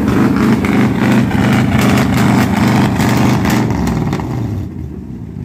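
V8 engine swapped into a 1976 Toyota Corolla KE35, running loud and uneven, dropping off near the end. It is not yet running right, which the owners put down to an air flow sensor that is not the engine's own.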